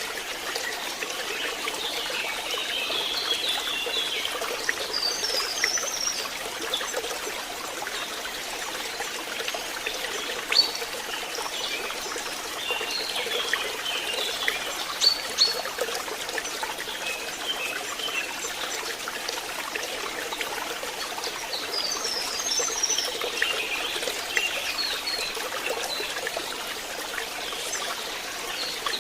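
Water trickling and flowing steadily, as in a forest stream, with short bursts of bird chirping every few seconds and a few sharp drip-like clicks.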